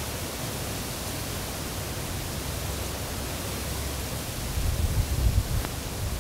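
Wind rushing through the leaves of a tree's crown, a steady hiss that sounds like a running river. From about four and a half seconds in, gusts rumble on the microphone.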